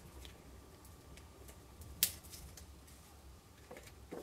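Faint handling of paper and a roll of adhesive tape on a craft desk, with a few light ticks and one sharp click about two seconds in, over a low steady hum.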